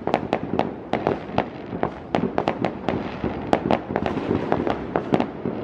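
Aerial fireworks going off without a break: sharp bangs and pops about three a second at irregular spacing, over a steady rumble of more distant bursts.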